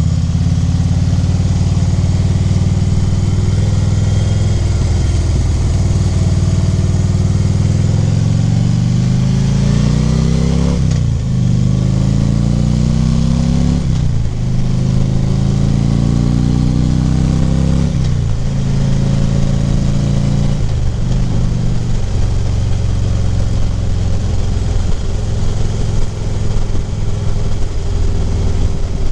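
Harley-Davidson V-twin engine at riding speed, heard through wind noise at a helmet microphone. After a steady stretch it accelerates through the gears, its pitch rising and dropping back with four upshifts, then settles into a steady cruise.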